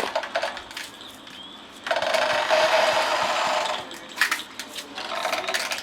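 Small electric blender motor running in a burst of about two seconds with a steady whine, starting about two seconds in and cutting off, followed by a few light clicks and knocks.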